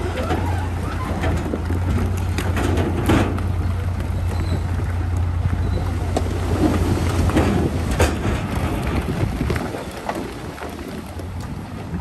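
Heavy construction machinery's diesel engine running with a steady low drone, with scattered clanks and scrapes of rock. The drone falls away a couple of seconds before the end.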